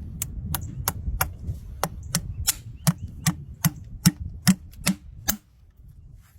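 A hard tool tapping sharply on a horse's hoof, about fourteen evenly paced knocks, roughly two to three a second, stopping a little after five seconds in.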